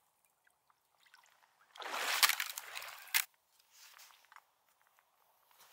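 River water sloshing and trickling for about a second and a half as a Jetboil cook pot is dipped in to fill it, ending in a sharp click. A few faint knocks follow as the stove is handled.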